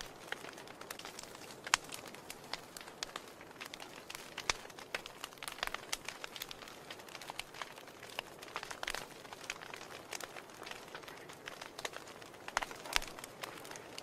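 Wood fire crackling in an open fireplace: a soft steady hiss with irregular sharp snaps and pops, the sharpest about two seconds in.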